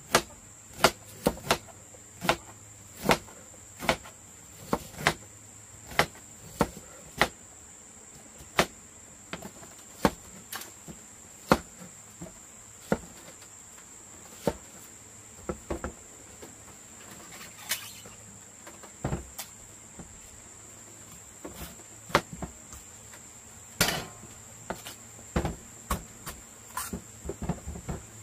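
Knives chopping bamboo shoots against cutting boards, sharp separate knocks about once a second, quicker in the first few seconds and again near the end. A steady high insect buzz runs underneath.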